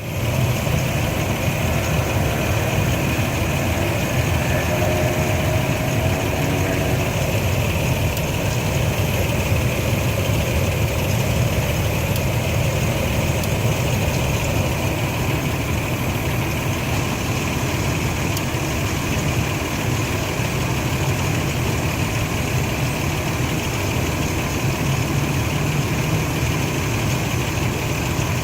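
Engine idling steadily, with the clicking noise and rough idle that the owner is showing as a fault.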